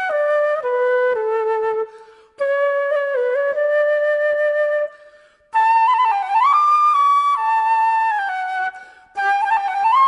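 Background music: a solo flute plays a slow melody in phrases separated by short pauses, with some notes sliding into the next.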